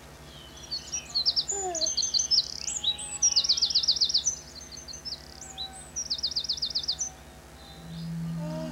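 A songbird singing in runs of quick, high, repeated trill notes and chirps. A low steady tone comes in near the end.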